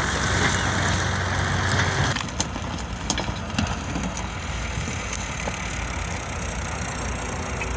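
Tractor engine running with a steady low hum. For the first two seconds a louder rushing noise sits over it, then drops away abruptly. Faint scattered ticks follow.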